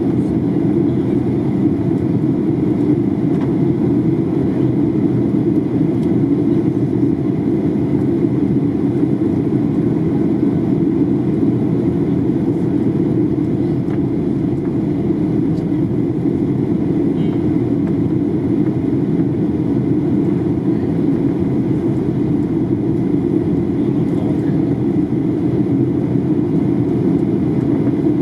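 Steady cabin noise of a Boeing 737-800 airliner in flight: an even, unchanging rushing hum, strongest in the low range.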